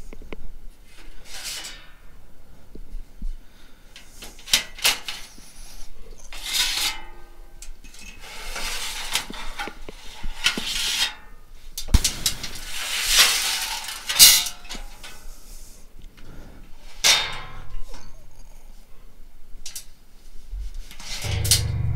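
Sheet-metal chassis panels and fittings of a dismantled UPS clanking and clinking as they are unbolted and handled, with intermittent knocks and a couple of longer stretches of metal scraping and sliding.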